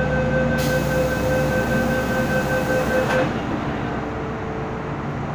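An MTR M-Train's door-closing warning: a pulsing beep tone with a hiss over it, which stops about three seconds in as the doors shut. After that only the train's low, steady hum remains.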